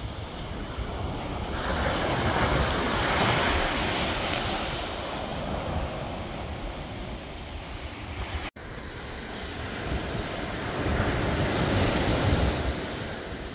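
Ocean surf breaking and washing up a sand beach, swelling louder twice as waves come in, with wind rumbling on the microphone. The sound cuts out for an instant about two-thirds of the way through.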